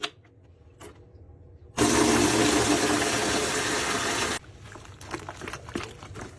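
Water running from a tap for about two and a half seconds, starting and stopping abruptly, with a few light handling clicks before and after.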